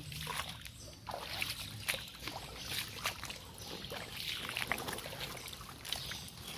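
Shallow swamp water sloshing and splashing irregularly as hands grope and dig in it, with water trickling and dripping off a gloved hand.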